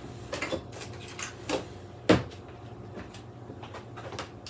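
A few short knocks and clunks of kitchen handling, the sharpest and loudest about two seconds in, over a low steady hum.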